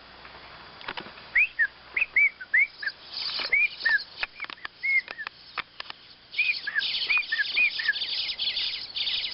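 Birds chirping: a string of short, arched chirps, joined about three seconds in by a dense, high twittering that grows busier near the end. The presenter takes them for baby birds.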